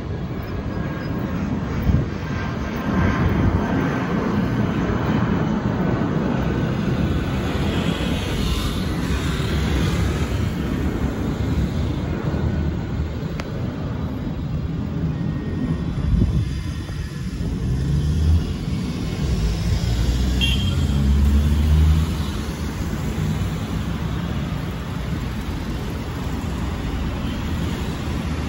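Airbus A320-family jet airliner passing overhead, its engines giving a steady rumble mixed with street traffic noise. A road vehicle's engine passes closer about two-thirds of the way through.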